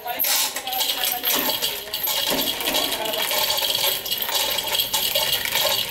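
Steel chains of a manual chain hoist clinking and rattling continuously as an engine hangs from it and is moved, with faint voices underneath.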